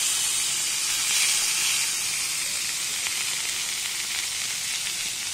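Chicken breasts frying in oil in a heavy-bottomed pan: a steady sizzle, a little louder in the first two seconds. The second side is cooking on a low flame after the pieces have been turned.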